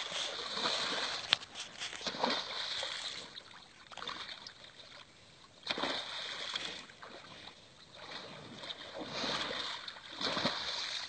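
Shallow water splashing and sloshing as a humped bull plunges and kicks through it, in three bouts with short lulls between.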